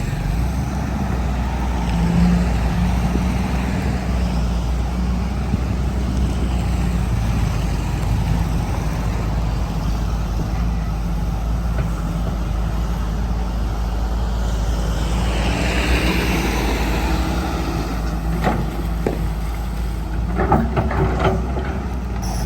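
Excavator's diesel engine running steadily, with a hissing swell about two-thirds of the way through and a few short knocks and clanks near the end.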